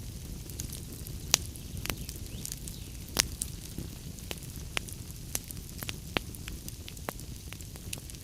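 Log fire crackling in a fireplace: irregular sharp pops and snaps over a low, steady rumble of the flames, with two louder pops about a second and a half and three seconds in.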